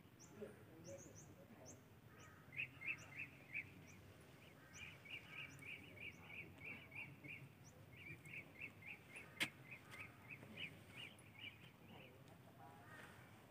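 Faint birds calling: runs of short chirps repeated about three a second, with fainter high tweets above them. One sharp click sounds a little after the middle.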